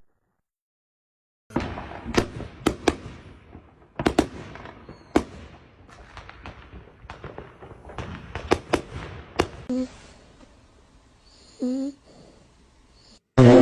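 A rapid, irregular series of sharp bangs and cracks, each trailing off briefly, starting about a second and a half in and thinning out about ten seconds in.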